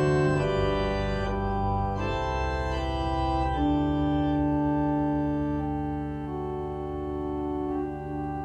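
Church organ playing slow sustained chords: the chords change about once a second at first, then one long chord is held from about three and a half seconds in, slowly growing quieter.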